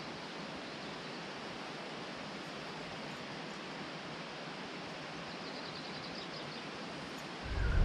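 Steady, even hiss of still fjord ambience, with the boat's engines shut off and no engine sound.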